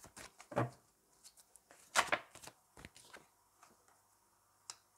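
Deck of tarot cards being shuffled by hand: scattered short flicks and slaps of the cards, the sharpest about two seconds in and another just before the end.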